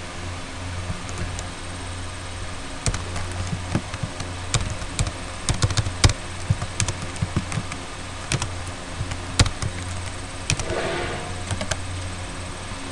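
Computer keyboard typing: irregular key clicks starting about three seconds in, over a steady low hum.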